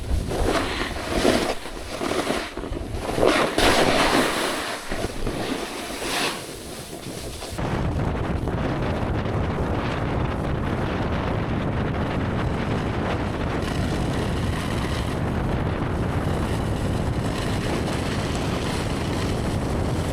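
Snowboard scraping and sliding over snow in uneven bursts for the first seven seconds or so, then steady wind rumbling on the microphone as the board glides.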